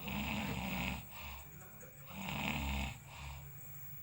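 A sleeping man snoring: two loud snores about two seconds apart, each followed by a shorter, softer breath.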